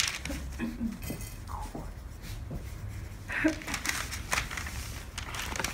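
Paper and muslin rustling and crinkling as they are smoothed and handled on a table, with many small clicks and scratches as the fabric is pinned and marked.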